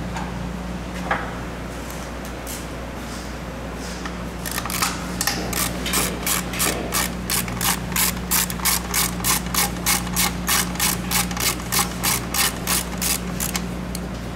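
Hand ratchet wrench being worked on a fastener in the engine bay: a regular run of clicking strokes, about three a second, that starts a few seconds in and stops near the end, after a couple of single clicks.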